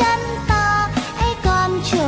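Background music: a song with a held melody over a steady beat, about two beats a second.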